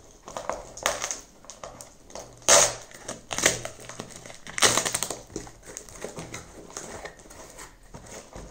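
Small cardboard box being opened by hand: flaps pulled back and cardboard scraping and crackling, with paper packing rustling. The noises come in irregular bursts, loudest about two and a half seconds in and again near five seconds.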